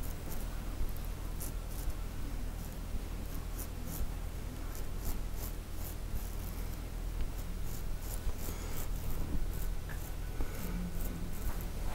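Straight razor scraping through a man's beard stubble in many short, irregular rasping strokes, over a low steady hum.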